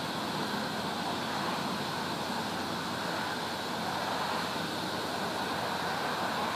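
Steady rushing outdoor background noise, even throughout, with no distinct knocks or calls standing out.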